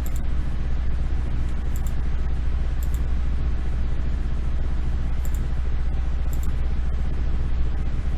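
Steady low rumble and hum with hiss from the recording's background noise, with a few faint clicks now and then.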